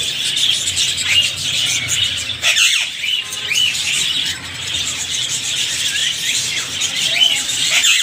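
A shop full of caged parakeets calling at once: a dense, steady chatter of high chirps with many short calls that rise and fall in pitch, repeating all through.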